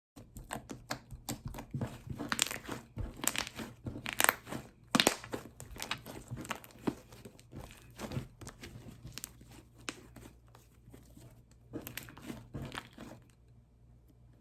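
Fluffy shaving-cream slime being squeezed and stretched by hand, giving a rapid run of crackling, popping clicks that is loudest early on and dies away about thirteen seconds in.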